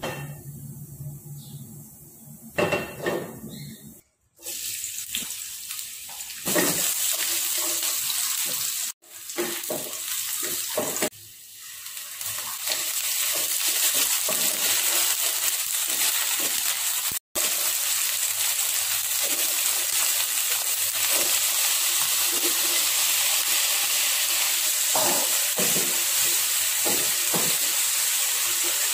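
Sliced onions and then diced potatoes sizzling in hot oil in a nonstick frying pan, with a wooden spatula scraping and stirring them in repeated strokes. The sizzle starts about four seconds in and cuts off briefly a few times.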